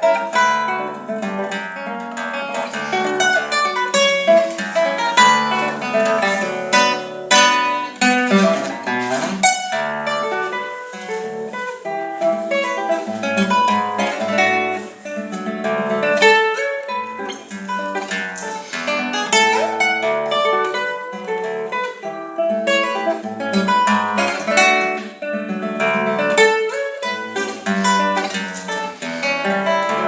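Solo classical guitar played fingerstyle: a plucked melody over bass notes, with a few sharp chord strokes along the way.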